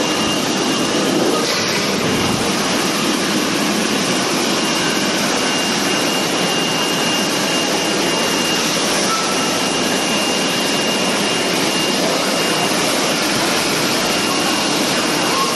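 Industrial conveyor spray-washing machine running: a steady hiss of water spraying and churning inside the wash chamber, with a faint steady high tone.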